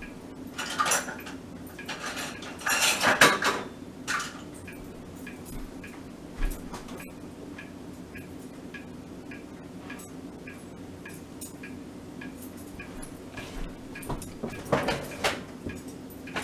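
Kitchen dishes and utensils clattering as things are handled. A few bursts of clinking and knocking come in the first four seconds, loudest about three seconds in. Then there are light scattered clicks and another clatter near the end, over a steady low hum.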